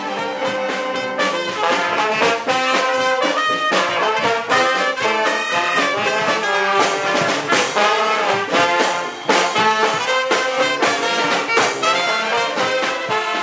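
A Marine Corps band's horn line of trombones, trumpets and saxophone playing loudly, in short, punchy accented notes.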